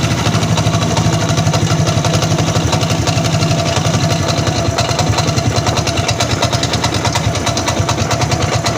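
100cc United motorcycle's single-cylinder four-stroke engine idling with a steady, even pulsing knock. The knock sounds like a worn connecting rod but is not one: it fades as soon as the throttle is opened slightly and returns at low speed, and the mechanic suspects it could come from a loose magneto nut or clutch nut.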